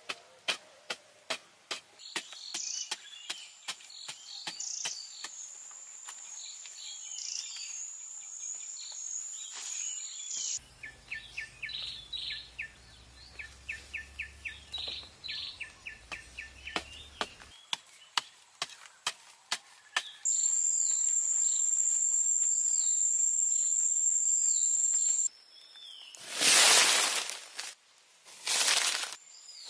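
Outdoor ambience of birds chirping and insects trilling. For the first ten seconds it runs over sharp ticks about twice a second, and after that comes a spell of quick repeated chirps. About two-thirds in, a loud, shrill, steady insect buzz lasts several seconds, and near the end there are two loud rushes of noise.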